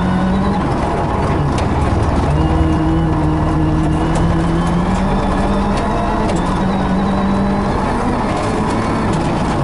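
Ford Fiesta R5 rally car's turbocharged four-cylinder engine running hard at speed on a gravel stage, its pitch stepping up and down with gear changes, over a steady rush of tyre and gravel noise.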